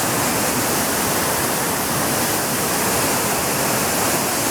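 Steady rushing of a waterfall, a loud unbroken roar of falling water.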